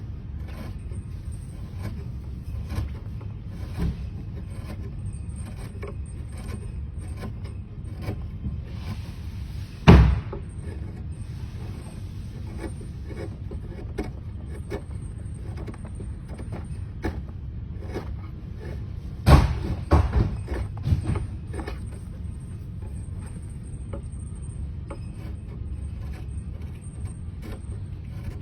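Hand-tool work on a cello nut: scattered light clicks and taps over a steady low hum, with a short scraping hiss and then a sharp knock about ten seconds in, and a quick run of knocks near twenty seconds.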